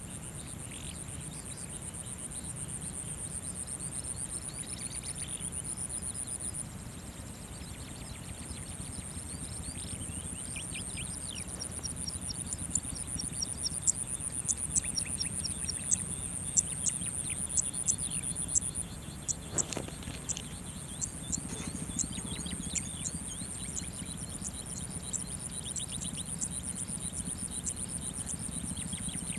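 Open grassland ambience: a steady high-pitched insect trill that pauses a few times, with scattered small-bird chirps and short calls, busiest in the middle, over a low rumble.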